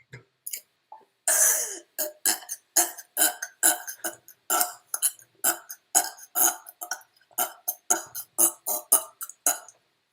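A person burping: one longer burp about a second in, then a rapid string of short burps, about three a second, for some seven seconds.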